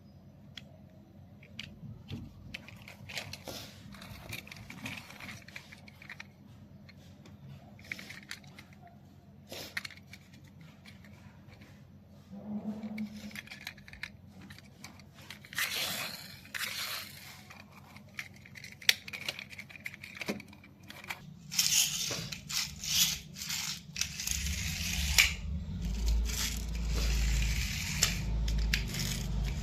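Hands handling a toy car and its packaging: irregular scrapes, tearing and crackles, growing busier and louder in the last several seconds, with a low rumble near the end.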